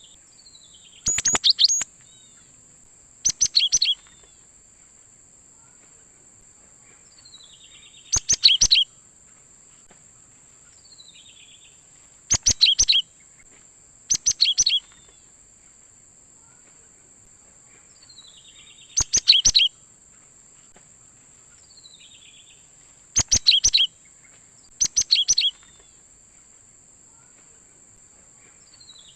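Cinereous tit (gelatik batu) singing: eight short bursts of rapid, sharp repeated notes spaced a few seconds apart, some led in by a softer falling trill. A steady high-pitched hiss runs underneath.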